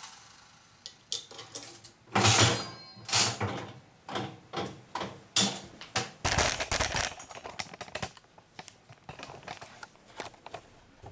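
Aristocrat Elite penny slot machine's mechanical reels clunking to a stop one after another over a few seconds, followed by a long run of quick light clicks.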